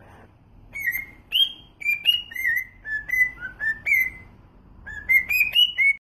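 Cockatiel whistling a tune: a run of clear, separate notes stepping up and down in pitch, a short pause after about four seconds, then a quick run of rising notes near the end.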